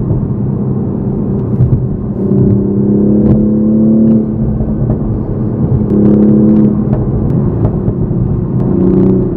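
Toyota Supra MK5's turbocharged 3.0-litre inline-six heard from inside the cabin in sport mode, pulling in three bursts of acceleration over a steady low drone. A few short sharp cracks from the exhaust pops and bangs come through.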